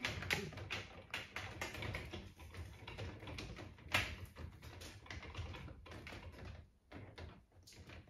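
Quiet plastic clicks and taps as the upper spray arm of a Bosch dishwasher is fitted and clipped back in under the upper rack, with the wire rack rattling lightly. One louder knock comes about four seconds in.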